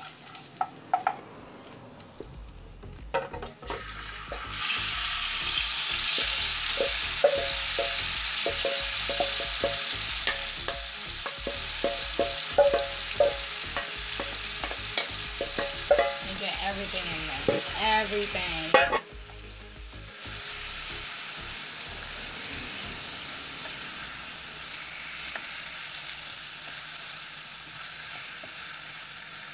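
Food frying and sizzling in a frying pan on a gas stove while it is stirred, the utensil scraping and clicking against the pan. The sizzle grows loud about four seconds in and drops back to a quieter, steady sizzle about two-thirds of the way through.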